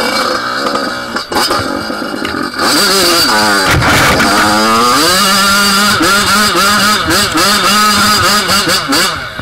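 Dirt bike engine revving hard on a hill climb, loud from about two and a half seconds in. Around four seconds the revs dip and climb back, then rise and fall repeatedly as the throttle is worked, easing off near the end.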